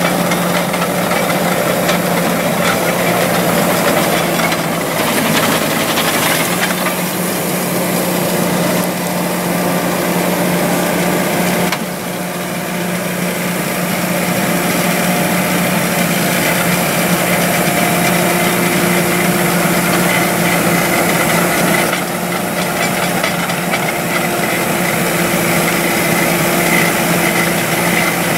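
Ditch Witch JT9 directional drill's engine running steadily, a constant hum under a loud rough mechanical noise, with a brief dip in level about twelve seconds in.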